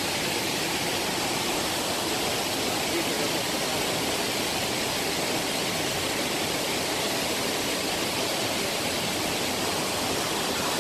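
Steady rush of flowing water, an even unbroken noise.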